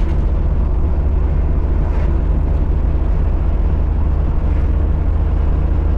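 A car on the move: a loud, steady low rumble of engine and road noise.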